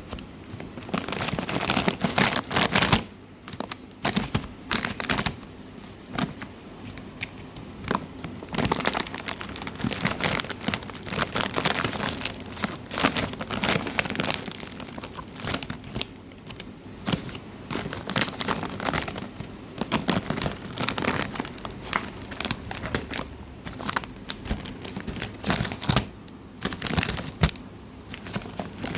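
Plastic packaging crinkling and tearing in irregular bursts as a tightly wrapped parcel is cut and pulled open by hand.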